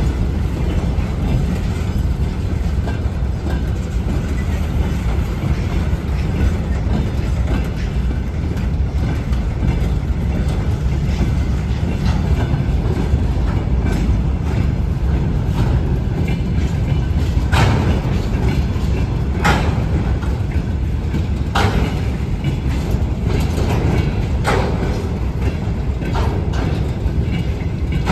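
ChME3 shunting diesel locomotive running with a steady low rumble from its six-cylinder diesel engine as it moves. A few short, sharp sounds come in the second half.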